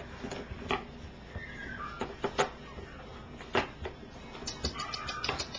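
Cockapoo puppies shuffling in a box: a few sharp knocks and claw scratches, a short falling squeak about one and a half seconds in, then a quick run of light ticks with a brief whine near the end.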